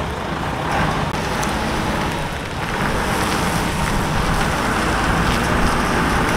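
Engine of a large Hyster forklift running steadily as it drives while carrying a flatbed trailer chassis.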